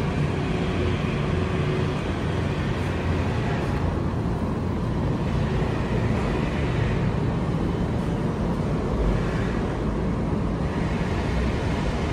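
A steady low rumble of outdoor background noise, even throughout, with no distinct events.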